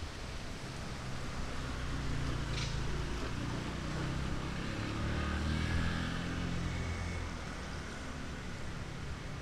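A motor vehicle's engine running as it passes, building up and loudest about six seconds in, then fading.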